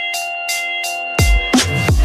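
Electronic background music with a steady beat of sharp high hits and deep bass notes that slide downward in pitch in the second half.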